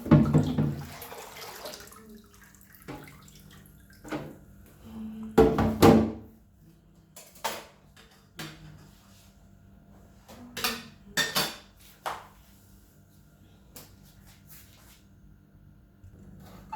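Scattered knocks and clatter of dishes and containers being handled, with louder bumps at the start and about six seconds in, and a few sharp clicks later on.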